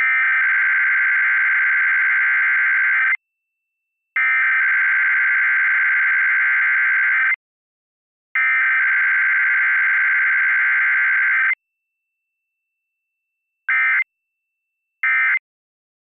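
Emergency Alert System digital data bursts for a Required Weekly Test. The SAME header is sent three times as a loud, raspy buzz, each about three seconds long with a second of silence between. Near the end come two short end-of-message bursts.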